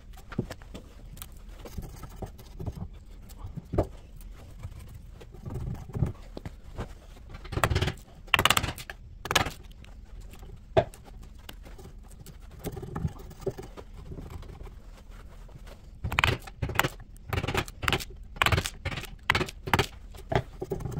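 Steel chisel paring and prying bark and sapwood off the edge of an oak slab: irregular scraping, crackling strokes with short sharp knocks. There is a run of strokes about a third of the way in and a longer, faster run near the end, with single clicks between.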